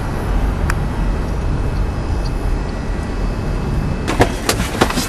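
Car driving at night, heard from inside the cabin: steady low engine and road rumble, with a few sharp clicks and knocks near the end.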